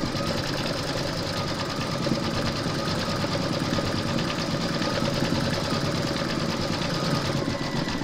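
Computerised embroidery machine stitching steadily, its needle going up and down at a rapid, even rate while it fills in a small circle with stitches.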